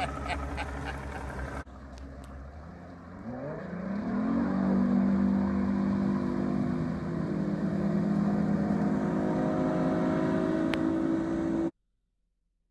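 Bass boat outboard motor throttled up from low speed. Its pitch rises for about a second and a half as the boat climbs onto plane, then holds steady at running speed until the sound cuts off suddenly near the end.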